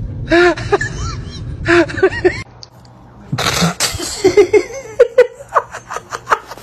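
Cats wrestling, one crying out in a string of short yowls that rise and fall in pitch. After a sudden cut about two and a half seconds in, a person laughs in a quick run of short ha-ha sounds.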